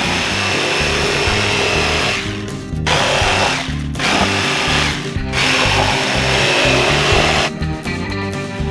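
A power tool running in four stretches, each one to two seconds long with short breaks between, then stopping near the end, over background music.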